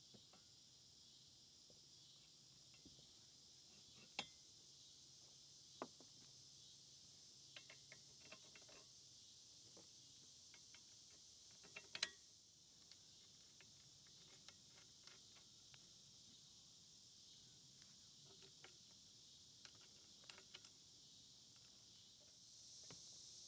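Faint steady insect chorus, like crickets, with scattered light clicks and taps from handling the steel parts of a Manley mechanical floor jack; the sharpest click comes about halfway through.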